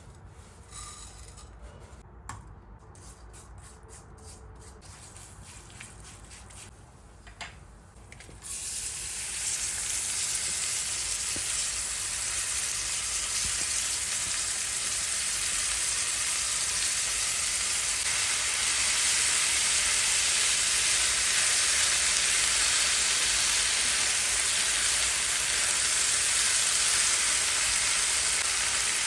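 Food frying in hot fat in a pot, sizzling steadily; the sizzle starts suddenly about eight seconds in, after a few light kitchen clicks and knocks. This is the frying stage at the start of cooking a rice pilaf.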